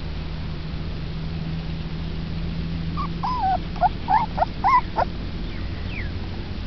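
Puppy whimpering: a quick run of about six short, high whines between about three and five seconds in.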